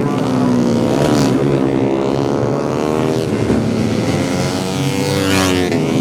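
Several 150 cc four-stroke underbone race motorcycles at high revs, passing one after another with engine pitch rising and falling as they go by; two passes stand out, about a second in and near the end.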